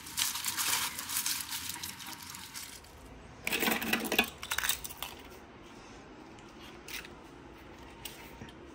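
Rustling, crinkling handling noise, then a louder burst of handling noise about three and a half seconds in, followed by quieter scattered clicks.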